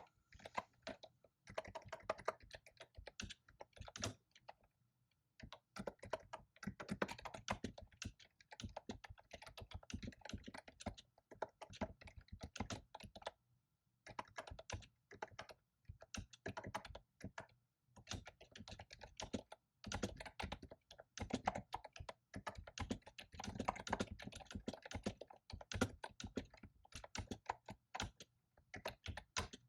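Fast typing on a computer keyboard: runs of quick key clicks broken by short pauses.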